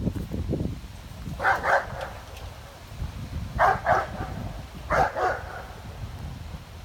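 Dog barking at a fence: three quick double barks spread over about four seconds.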